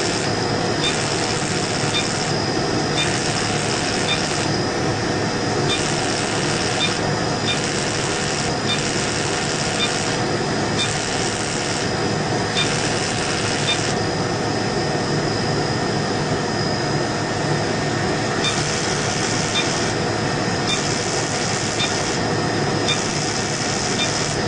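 Fractional CO2 laser resurfacing machine at work on the skin: a steady running noise, with bursts of hiss about a second long switching on and off as the laser fires, and faint ticks a little more often than once a second within them. The bursts stop for about four seconds past the middle.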